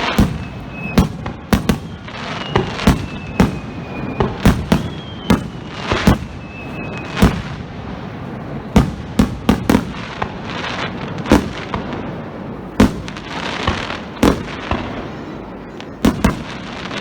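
A star mine fireworks barrage: aerial shells bursting in quick, irregular succession, several sharp bangs a second at times. In the first seven seconds a few whistles glide down in pitch between the bangs, and later there are stretches of dense crackling.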